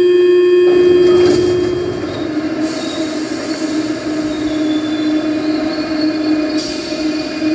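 Metro train sound effect: a train rumbling along with a wavering squeal of wheels, coming in under a held tone that fades out within the first two seconds.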